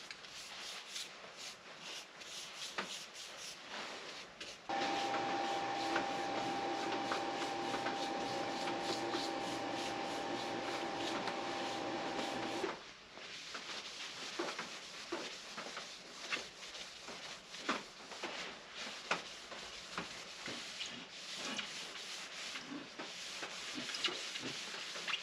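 A cloth rubbing wood stain along a Douglas fir walking stick, in scratchy back-and-forth wiping strokes. From about five seconds in to about thirteen seconds, a steady hum sits under the rubbing and then stops abruptly.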